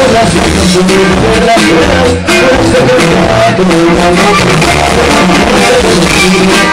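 Loud live band music played on stage by a Mexican regional group, with tuba and a steady drum beat.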